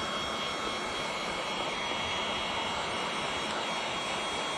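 Handheld heat gun running steadily: an even blower hiss with a thin, steady high whine, as it heats and shrinks window tint film on the windshield glass.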